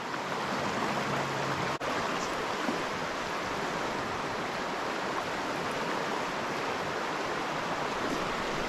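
Shallow, rocky mountain stream flowing over a riffle: a steady rushing of water, with one brief click about two seconds in.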